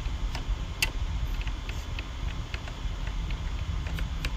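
Knife striking a cutting board as vegetables are chopped: a quick, uneven run of sharp ticks, about three a second, over a steady low rumble.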